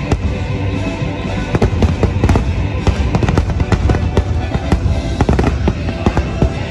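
Fireworks going off in rapid, irregular succession, many sharp bangs and crackles a second, with music playing throughout.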